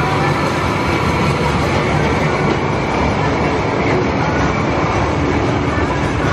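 Steady, loud rumbling noise with no speech.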